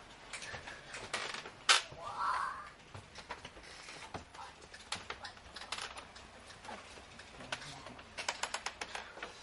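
Irregular light clicks and taps, with one sharper knock a little under two seconds in and a quick run of clicks near the end.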